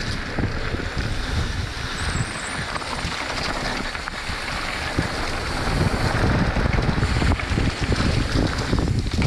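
Wind buffeting the action-camera microphone while a Trek Slash 9.8 mountain bike runs down a dirt trail, its tyres rumbling and the bike rattling over bumps. It gets louder from about six seconds in.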